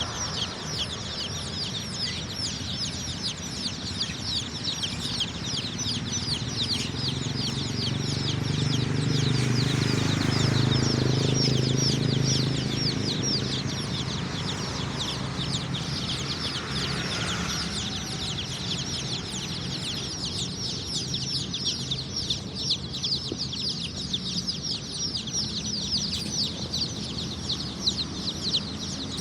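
A large flock of kampung chicks peeping: a dense, high-pitched chorus of short falling cheeps with no break. A low rumble swells under it in the middle and fades again.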